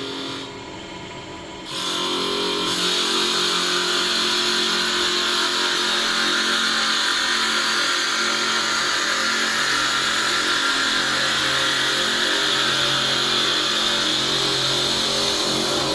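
Two-spindle CNC wood lathe running with a steady rushing machine noise. The noise drops briefly near the start and comes back fully about two seconds in.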